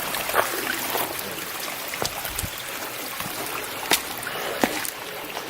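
Steady rush of water from a waterfall, with a few short sharp clicks over it.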